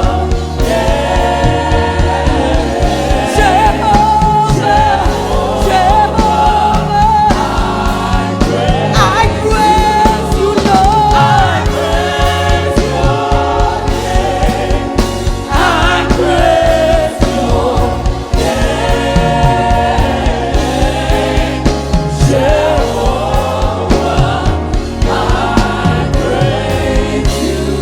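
Live gospel worship music: a choir and lead singer singing over a band with bass and drums.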